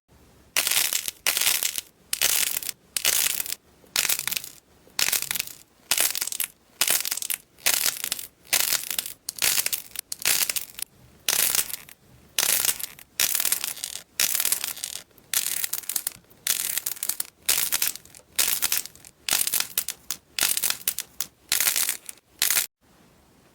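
Crunchy slime being pressed and squeezed by hand, a crisp crackling crunch repeated about five times every four seconds, stopping just before the end.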